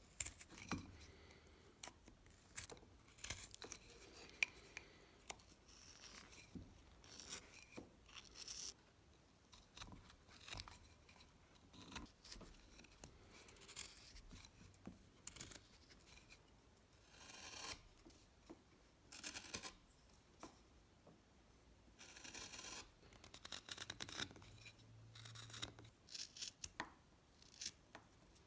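Carving knife cutting and shaving wood by hand: irregular short scraping cuts and small clicks, with a few longer shaving strokes of about a second each in the second half.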